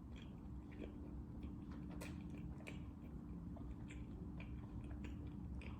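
Faint chewing of a flaky egg-yolk pastry with a salted-egg-yolk and mochi filling: soft, scattered mouth and teeth clicks over a steady low hum.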